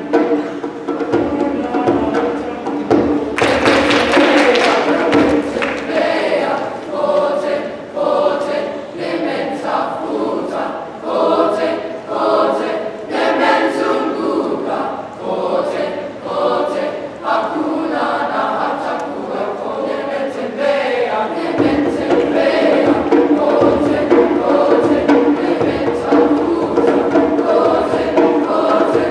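Boys' middle-school tenor/baritone chorus singing in parts, with a burst of percussion about three to six seconds in. From about two-thirds of the way through, the voices hold long sustained chords.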